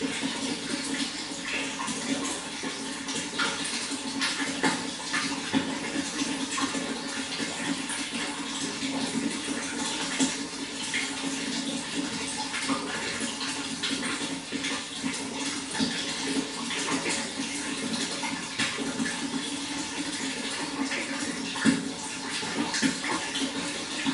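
Running water, steady and splashing, with many small splashes and drips over a continuous rush.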